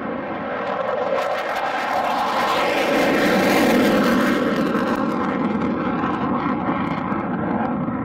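F-15 Eagle's Pratt & Whitney F100 turbofans at full afterburner on takeoff and climb-out: a loud, rough jet roar with crackling, swelling to a peak about halfway through and then easing as the jet pulls away.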